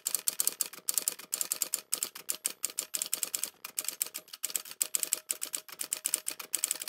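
Typewriter typing sound effect: a fast, uneven run of key clicks.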